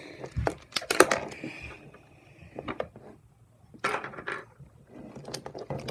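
Plastic megaminx pieces clicking and clattering as they are pried out of the puzzle and set down: separate sharp taps in small clusters.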